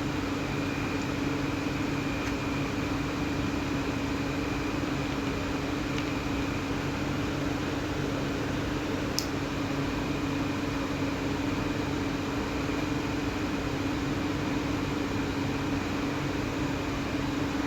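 Angle grinder running steadily at constant speed, a hum with a fainter high whine over a hiss of noise, with one brief click about nine seconds in.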